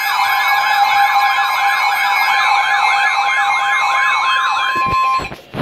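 Emergency alert siren warbling rapidly up and down, about two to three sweeps a second, over a steady alert attention tone at the start of a Severe Thunderstorm Warning broadcast. Both cut off about five seconds in, followed by a few short clicks.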